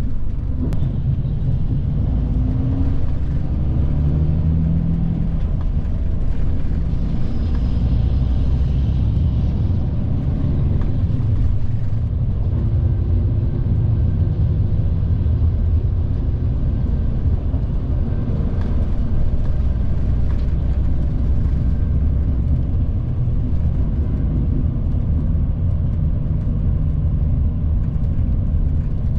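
Cabin noise inside a Mitsubishi Fuso Aero Ace diesel coach driving in city traffic: a steady low engine and road rumble. The engine note rises and falls a couple of times as the coach speeds up and slows.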